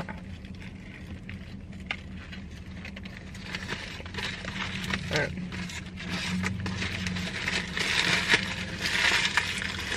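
Chewing a mouthful of crispy fried chicken sandwich, then a foil-lined paper sandwich wrapper crinkling as it is handled and folded, the crinkling building up from about a third of the way in and loudest near the end.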